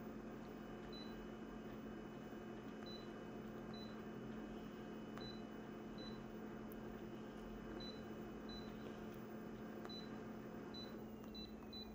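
Short, high key-press beeps from a multifunction copier's touchscreen control panel as its on-screen settings are tapped, about a dozen at irregular intervals, over a steady low hum.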